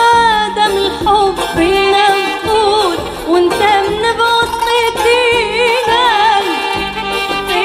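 A woman singing an Arabic song live into a microphone, her melody full of quick ornamented turns and vibrato, over a band with hand drums keeping a steady beat.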